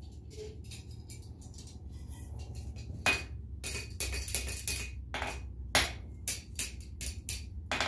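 Hand hammer striking hot 3/8-inch round steel stock against a cone mandrel, bending it into a ring. A few light taps come first, then about three seconds in a quick run of a dozen or so ringing blows, over a steady low hum.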